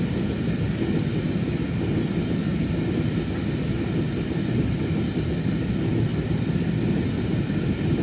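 Chinese-built container flat wagons of a freight train rolling past: a steady low rumble of wheels on rail, with no separate clanks or knocks.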